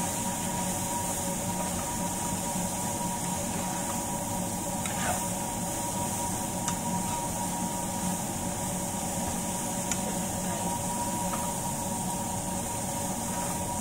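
Strips of dried salted fish (tuyo) frying in oil in a frying pan, with a steady sizzle, while a metal spatula stirs them and clicks against the pan a few times. A steady hum sits underneath.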